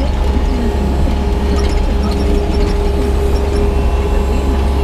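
Excavator engine running steadily with a constant whine from the hydraulics while the machine works, and a few short squeaks over the top.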